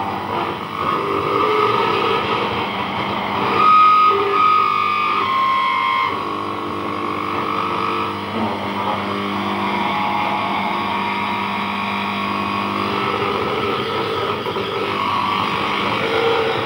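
Radio and TV sets playing distorted music through static and a steady hum, the signal picked up from transmitters on a moving pendulum shaft. Held tones step and shift in pitch about four to six seconds in, where it is loudest.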